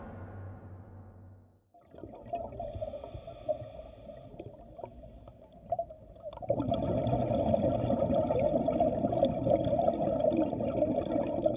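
Underwater sound recorded with the footage: a steady watery rush with bubbling, which grows louder about six and a half seconds in. In the first second and a half, an earlier sound fades away.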